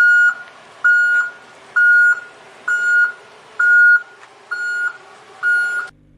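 Electronic warning beeper sounding seven evenly spaced beeps on one steady high pitch, a little under one a second, over a faint hum, like a reversing or lift alarm. It cuts off near the end.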